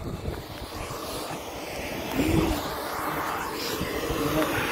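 Hair dryer forcing air through a steel pipe into a bed of hot charcoal: a steady rushing drone of blown air and fire, with an uneven low rumble underneath.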